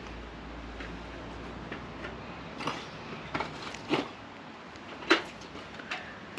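A handful of sharp, separate clicks and light knocks, about five in all, the loudest about five seconds in.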